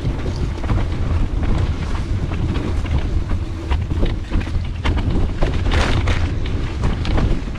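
Mountain bike riding over a dirt trail, heard through a handlebar-mounted camera: steady wind rumble on the microphone with frequent clicks and knocks as the bike rattles over rough ground, and a short hiss about six seconds in.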